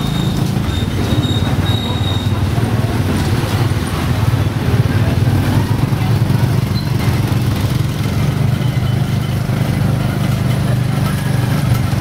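Tuk tuk's motorcycle engine running at a steady pace, heard from the passenger carriage, a constant low drone with road and traffic noise around it.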